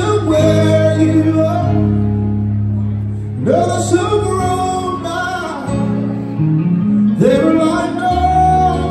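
Live music: a male singer singing with keyboard and guitar accompaniment over a PA. Three sung phrases, each sliding up into a long held note.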